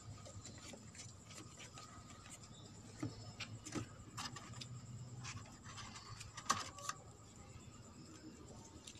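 Faint scattered taps and rustles of cardboard pieces being handled and pulled out of a cardboard model computer case, the sharpest tap about six and a half seconds in, over a faint steady hum.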